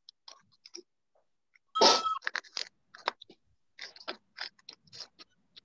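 An irregular run of short clicks and scraping, crunchy handling noises. The loudest is a crunchy burst about two seconds in.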